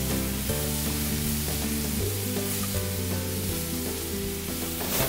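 Pan gravy of roux and turkey stock sizzling in a hot pan, with background music of slow held notes.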